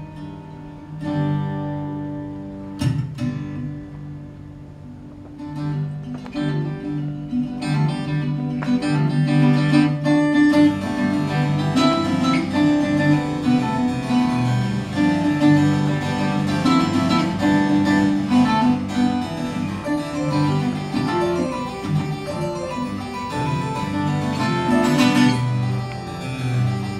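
Viola de cabaça, a ten-string Brazilian viola with a gourd body, played fingerstyle. At first it plays sparse plucked notes, then it grows into a fuller, busier passage of melody and chords from about six seconds in.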